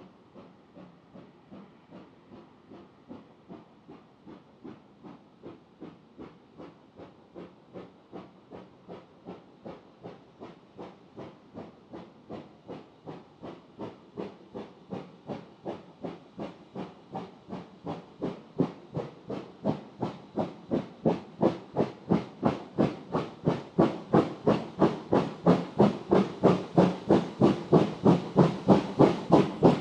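Steam locomotive working under steam, its chuffing exhaust beats coming about two to two and a half times a second and growing steadily louder as it approaches.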